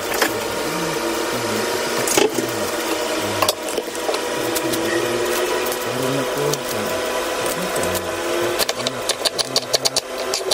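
Cleaver chopping a red onion on a wooden chopping board: a few single knocks, then rapid chopping at about five or six strokes a second in the last two seconds, over a steady background hum.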